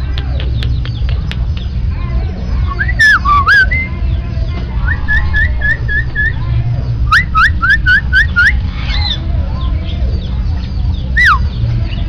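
Caged white myna whistling: a few sharp ticks at first, then loud clear whistles, including a quick run of short rising notes and later a single falling whistle. A steady low rumble of background noise runs underneath.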